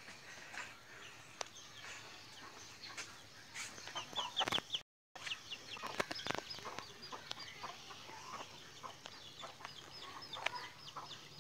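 Faint birds chirping: many short, high, falling peeps in quick succession, with a few soft clicks.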